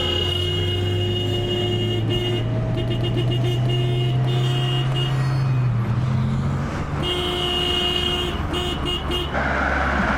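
Vehicle horns honking: a long held blast, then a string of short rapid toots, then another held blast and more quick toots. A low steady drone runs underneath.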